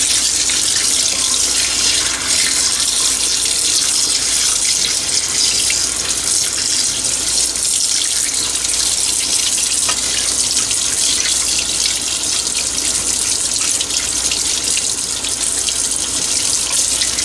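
Kitchen faucet running steadily into the sink, the stream splashing over a skinned squirrel carcass that is being rinsed by hand.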